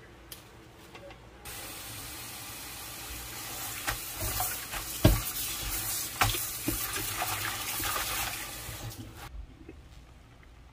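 Kitchen tap running onto leafy greens in a stainless steel sink, with splashes as hands rinse the leaves. The water comes on about a second and a half in and stops about nine seconds in.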